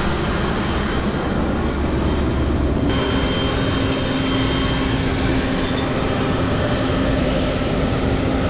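Steady cabin noise inside an Embraer E190 jet airliner: an even rush with a constant high whine. About three seconds in, the deep rumble drops away and a steady low hum takes over.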